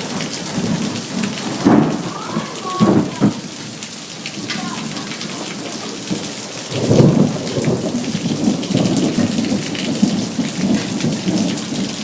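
Hail storm: a dense, steady pelting of hail, with louder rumbling surges at about two seconds, around three seconds, and from about seven seconds in.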